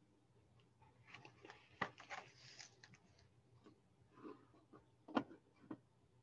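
A hardcover picture book being handled: paper rustling as the last page is turned and the book is closed and turned over, with a few light taps and a sharp knock about five seconds in as the book is laid flat.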